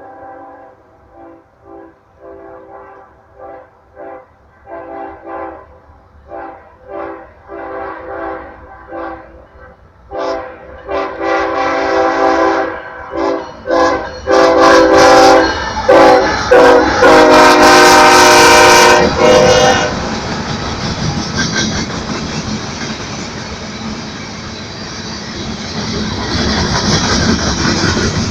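Diesel freight locomotive's multi-tone air horn sounded in a rapid rhythm of many short blasts, a horn show, growing louder as the train approaches, then several longer blasts at full volume. About 20 s in the horn stops and the passing locomotives and wagons make a steady rumble with rail noise.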